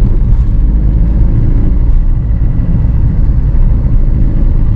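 A car driving on the road: a steady, loud low rumble of engine and road noise, with no horn or other distinct sounds.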